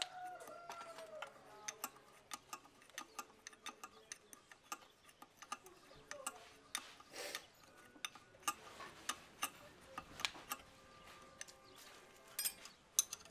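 Hand tool working the exhaust manifold nuts on an Isuzu 4JB1 diesel cylinder head: a string of sharp metallic clicks and ticks, a few a second and unevenly spaced, with two louder clicks near the end.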